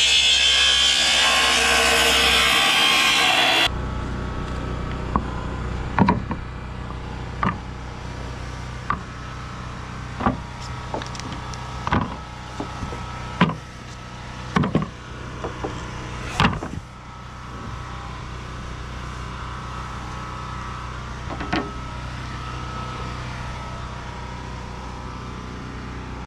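Makita track saw running on its guide rail, cutting through composite deck boards, then cutting off suddenly about three and a half seconds in. After that come scattered sharp knocks and clatters as the cut-off pieces of decking are handled.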